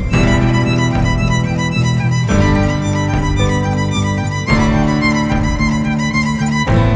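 Instrumental music led by violin, with sustained notes and a chord change every two seconds or so.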